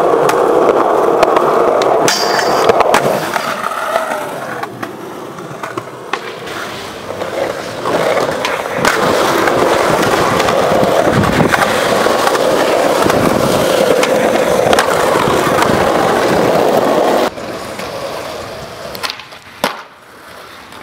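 Skateboard wheels rolling on pavement, broken by sharp clacks of the board hitting the ground and obstacles. The rolling drops off abruptly near the end.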